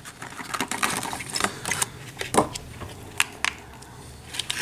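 Thin clear plastic blister tray crackling and clicking in the hands as a small plastic miniature is pried out of it: a string of irregular sharp clicks, the loudest about two and a half seconds in.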